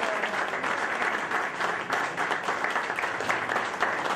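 Many people applauding: dense, steady clapping of a roomful of hands.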